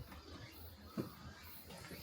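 Two slow footsteps on an old floor, dull thuds about a second apart.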